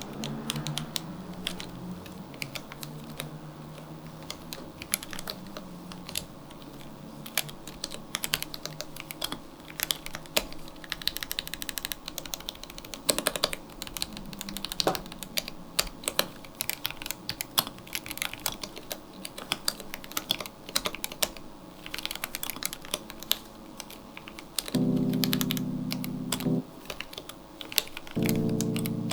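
Typing on a My Neighbour MYNK65 gasket-mount mechanical keyboard with PBT keycaps and an acrylic case: a steady run of quick, uneven keystrokes. Twice near the end a low held tone sounds for about two seconds, louder than the typing.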